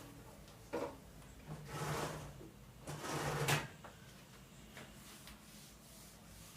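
A light knock, then two short sliding, rustling noises of household things being moved about, the second a little louder.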